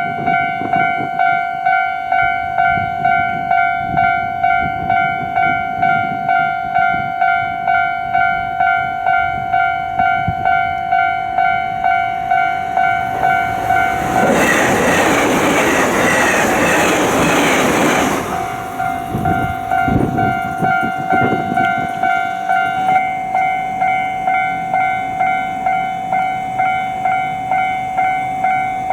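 Level-crossing warning bell ringing, a steady repeated ding about twice a second. About halfway through a train passes close by with a loud rush lasting about four seconds, followed by wheels clattering over rail joints while the bell keeps ringing.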